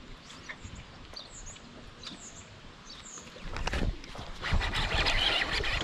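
A few faint bird chirps, then from about three and a half seconds in, loud irregular splashing of a hooked bass thrashing at the surface beside the boat.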